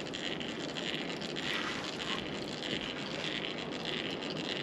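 Steady hiss of water and wind around a small drifting boat, with the faint scraping of a fishing reel being wound as a fish is played in.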